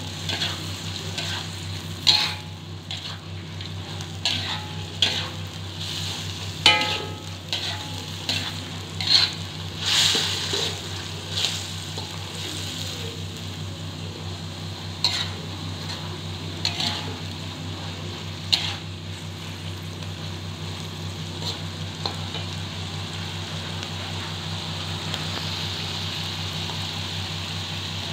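Oyster mushrooms and mustard greens sizzling in a frying pan while a spatula stirs them, with scattered knocks and scrapes of the spatula against the pan. The knocks stop about two-thirds of the way through and the sizzle continues steadily.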